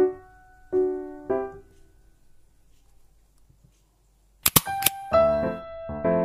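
Background piano music: a few notes, a pause of about two seconds, then two sharp clicks about four and a half seconds in, after which a livelier piano melody starts.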